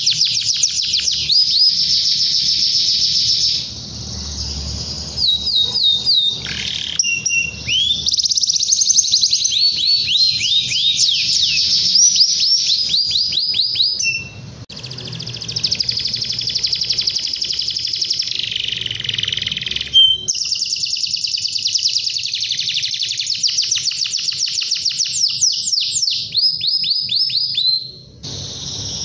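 Domestic canary singing a long song of fast trills and rolls: rapid repeated notes, many sweeping down in pitch, broken by a few short pauses.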